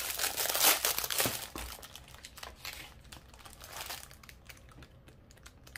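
Clear plastic bag crinkling as a sheet of round sticker labels is pulled out of it, loudest in the first two seconds, then thinning to scattered faint crackles and taps.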